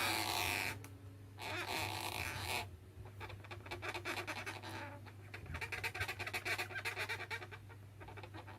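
Latex modelling balloon squeaking and rubbing as a soft marker pen draws an eye on it: a rapid run of small squeaks from about three seconds in.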